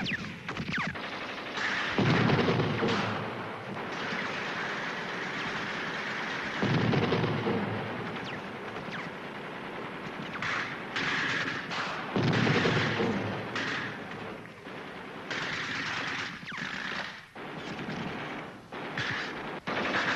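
Battle gunfire on a film soundtrack: sustained rapid strings of shots, with the loudest volleys about 2, 7 and 12 seconds in.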